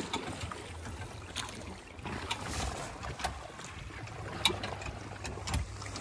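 Rowing boat crossing a river under manual effort: water moving around the hull under a steady low rumble, with sharp knocks roughly once a second.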